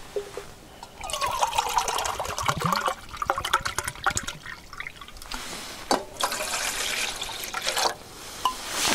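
Water poured into a metal mug and tipped into a cooking pot, trickling and splashing in about three pours.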